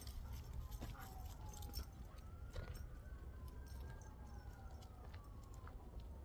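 Faint siren wailing in the distance, one tone rising and falling slowly over several seconds. Under it is a low rumble and a few soft clicks.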